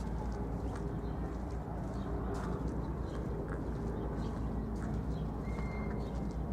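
Footsteps on hard ground, about one to two steps a second, over a steady low outdoor rumble.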